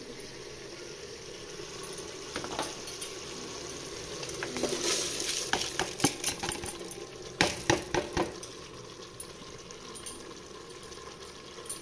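Washed rice is tipped into an aluminium pressure cooker onto sizzling chicken masala over a high flame. A long metal spatula stirs and scrapes in the pot, with a run of sharp clinks and knocks against the metal in the middle.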